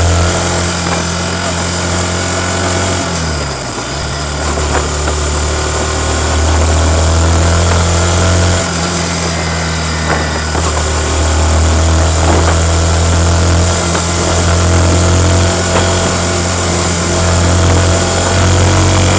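Yamaha MT-15's 155 cc single-cylinder four-stroke engine running steadily through its stock exhaust, with a brief drop and recovery in pitch about three to four seconds in.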